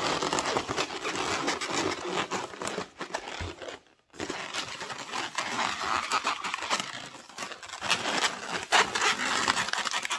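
Inflated latex twisting balloons rubbing and squeaking against each other and against the hands as a 260 balloon is bent and twisted into a fish's tail, with a steady rubbing and crinkling and short squeaks; it breaks off briefly about four seconds in.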